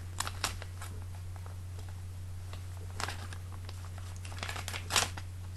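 Paper mailing envelope being handled and opened by hand: a few scattered crinkles and rustles, the loudest about five seconds in, over a steady low hum.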